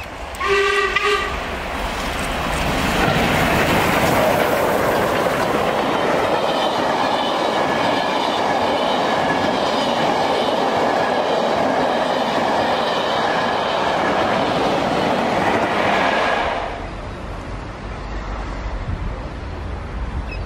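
A steam locomotive sounds a short whistle, then passes close by with its train of coaches, a long loud rumble and clatter of wheels on rail. From about six seconds in, a steady high ringing tone runs through it. The sound cuts off suddenly near the end, leaving a quieter low rumble.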